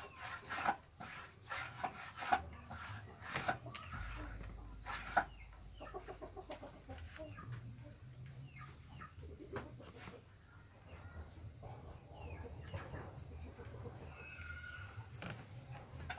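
A caged fighting cricket chirping: a long run of short, even, high chirps at about four to five a second, breaking off for about a second around ten seconds in and then resuming. Light clicks and rattles of the bamboo cages being handled sound underneath, mostly in the first few seconds.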